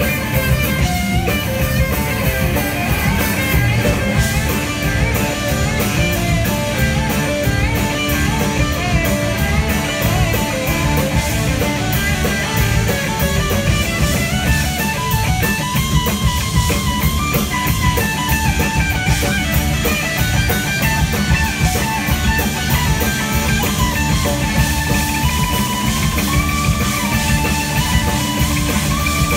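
Live band playing an instrumental rock jam on electric mandolin, electric guitar, electric bass and drum kit, with a steady drum beat and a lead line sliding in pitch near the end.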